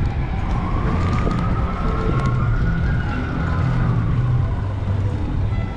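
Emergency vehicle siren wailing in a slow rise and fall, heard over heavy wind rumble on the microphone of a moving bike.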